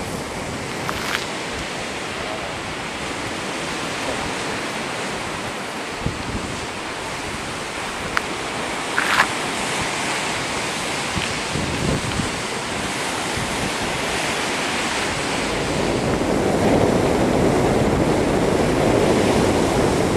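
Wind rushing over the camcorder microphone, mixed with the wash of surf breaking on a rocky shore, growing louder in the last few seconds. A few brief knocks stand out over the noise.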